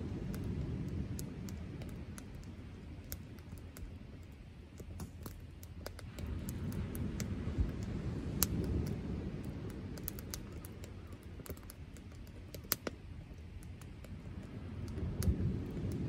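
Wood fire crackling in a Solo Stove Campfire fire pit: irregular sharp pops and snaps, a few louder ones, over a low rumble that swells and fades.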